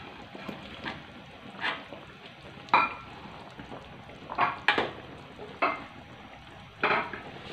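Metal spatula stirring a wok of simmering broth with okra and tomatoes, knocking and scraping against the wok's side: about seven sharp clinks, roughly a second apart, over a steady low bubbling hiss.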